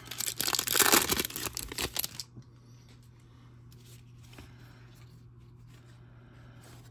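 Hockey card pack wrapper being torn open, with loud crinkling that stops about two seconds in.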